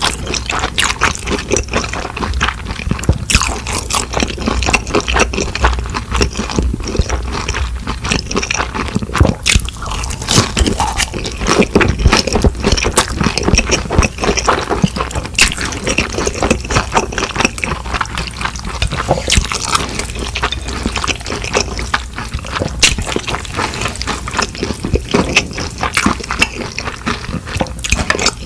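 Close-miked eating sounds: wet chewing and mouth clicks, a dense, steady run of small sticky crackles.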